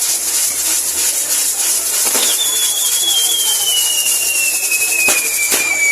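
Castillo fireworks burning: a steady loud hiss of fountains and spinning wheels, with light crackling. About two seconds in, a whistling tone starts and slowly falls in pitch. Two sharp cracks come near the end.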